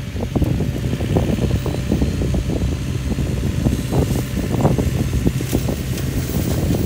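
Sany SY50U mini excavator's diesel engine running steadily, with the Mongo flail mulcher head turning and a dense, irregular crackle of short snaps as it shreds brush.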